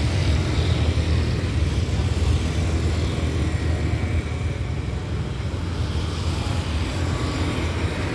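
Steady low engine rumble mixed with passing road traffic.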